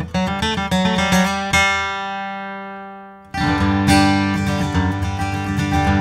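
Taylor extra-deep dreadnought steel-string acoustic guitar with a sinker redwood top, played with the fingers: a run of picked notes, then a chord left to ring and fade for about two seconds, then playing starts again abruptly with fuller, strummed chords.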